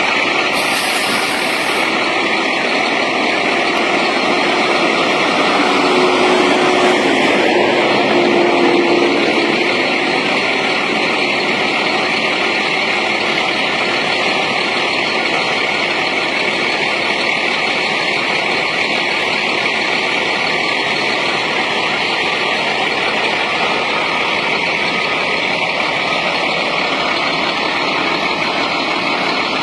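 Heavy road-construction machinery running with a steady, dense engine-and-mechanical noise, swelling slightly for a few seconds about a quarter of the way in.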